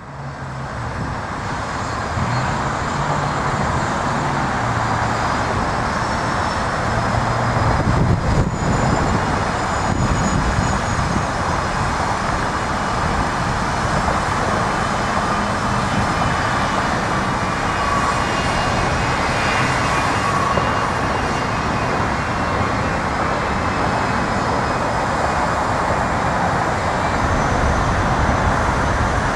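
Boeing 737-600's CFM56-7B turbofan engines running at low taxi thrust, a steady rushing jet noise with a faint high whine. The sound fades in over the first second.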